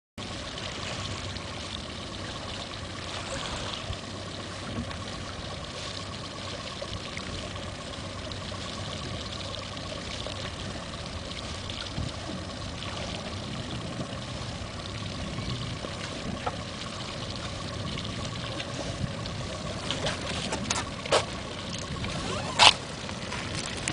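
Sea water lapping and trickling against the hull of a small wooden fishing boat, with a steady hum underneath. A few sharp knocks come near the end, the loudest about a second before it stops.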